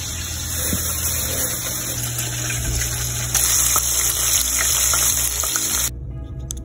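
Chicken nuggets deep-frying in a pan of hot oil: a steady, loud sizzle with a few light clicks, which cuts off suddenly about six seconds in.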